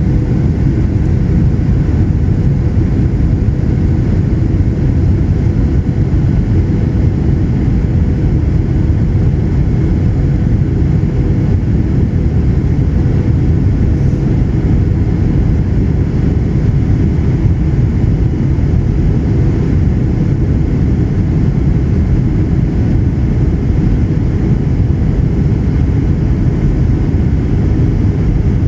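Steady cabin noise of a Boeing 737-900ER in flight: the low rush of airflow and its CFM56-7B turbofan engines heard from inside the cabin, with a faint steady hum. The sound holds even throughout, with no thumps or changes in engine note.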